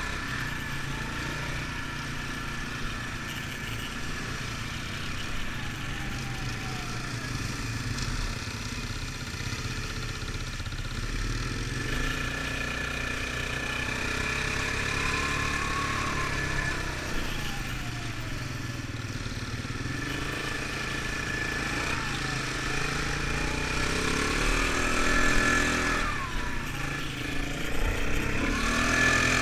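ATV (quad bike) engine running under way on a rough trail, its pitch sweeping up and down several times as the throttle is worked, with a steady high whine over it; it grows louder towards the end.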